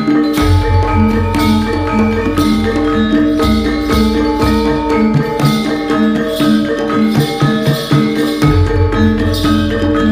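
Background music with a repeating melody over a steady beat; a deep bass part comes in shortly after the start, drops out about midway, and returns near the end.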